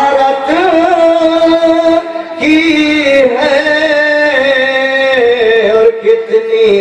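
A man's voice singing a naat, an Urdu devotional poem in praise of the Prophet, drawing out long held notes in two long phrases with a brief break about two seconds in.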